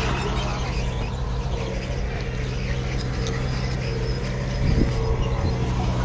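Diesel engine of heavy earthmoving machinery running at a steady speed, with a single clunk near the end.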